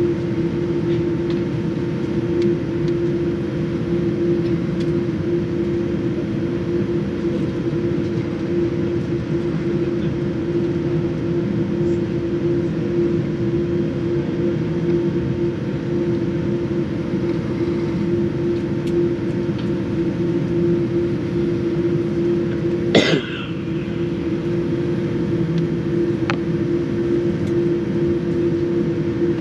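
Steady cabin noise inside a Boeing 787 taxiing with its engines at idle: a low rumble with a steady hum running under it. About 23 seconds in there is one short, sharp sound.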